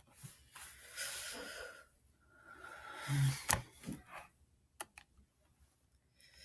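A person breathing close to the microphone: two long, hissing breaths, followed by a sharp click and a fainter second click.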